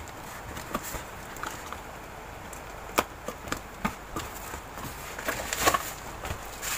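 Cardboard shipping box being opened by hand: a utility knife cutting the packing tape, cardboard flaps rustling and knocking in irregular clicks, then bubble wrap crinkling near the end as an item is pulled out.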